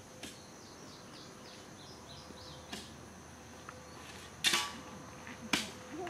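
Open-field evening ambience: a steady high insect drone, with a run of short falling chirps in the first few seconds. A few sharp clicks cut in, the loudest about four and a half seconds in and another about a second later.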